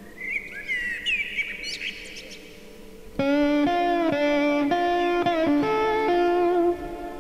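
Music soundtrack: a faint steady drone with bird-like chirps, then, about three seconds in, loud sustained guitar notes stepping in pitch every half second or so, breaking off shortly before the end.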